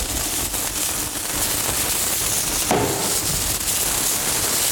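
Diced bacon sizzling and crackling in hot olive oil in a frying pan, with a short knock about three seconds in.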